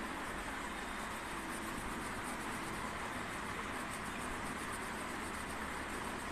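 Steady hiss of background noise, with the faint scratching of a crayon being rubbed back and forth on paper.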